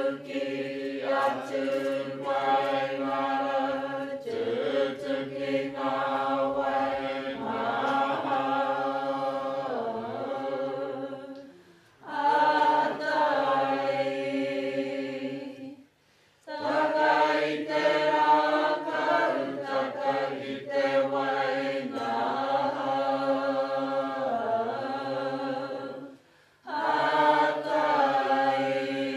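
A group of voices chanting a Māori mōteatea in unison, unaccompanied, in long held lines that slide in pitch. The singing breaks off three times for a short breath.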